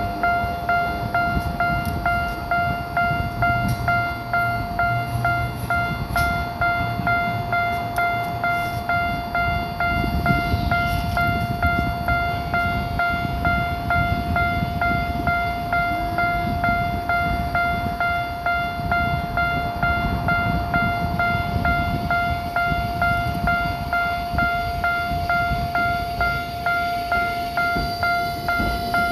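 Railroad crossing warning bell ringing steadily: one electronic tone repeated at a quick, even rhythm. Under it is the rumble of a Ginza Line subway train running through the crossing, with a brief falling squeal about ten seconds in.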